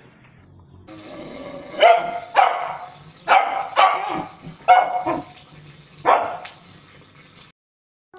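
A dog barking, about half a dozen short barks in irregular pairs, over a faint background hiss.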